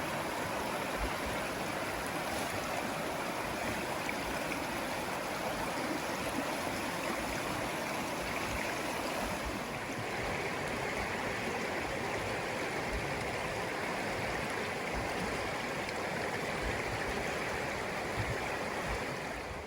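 The Gale River flowing steadily over its bed, a continuous full rush of water in the late-winter thaw.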